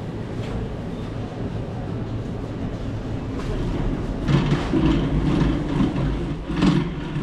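Metal supermarket shopping trolley being pushed along a hard floor: the wheels rumble and the wire basket rattles. It grows louder and more clattery from about four seconds in, with a sharper knock near the end.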